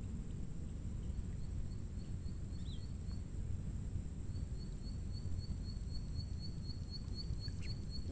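Open-air lakeside ambience: a steady low rumble under a constant high insect drone, joined about halfway through by a high, short chirp repeated about three times a second.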